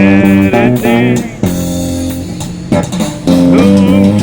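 Street musician playing an amplified bass guitar, holding long low notes, with a quieter stretch in the middle.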